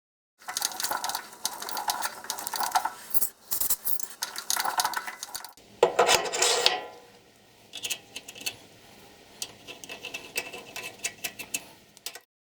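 Metal parts clinking and scraping as they are handled, with a louder scrape lasting about a second around six seconds in, then lighter scattered clicks; the sound starts and stops abruptly.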